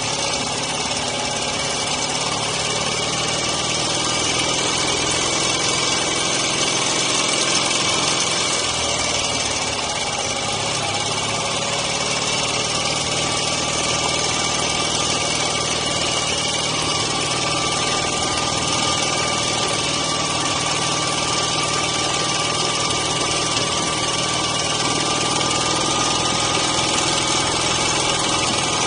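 Dnepr MT9 sidecar motorcycle's flat-twin engine running steadily.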